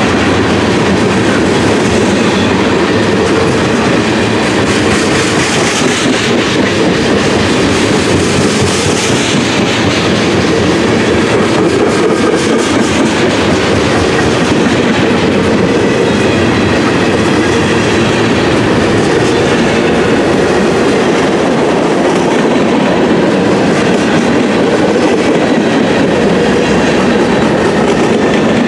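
Freight cars rolling past close by, their steel wheels rumbling and clicking steadily over the rails.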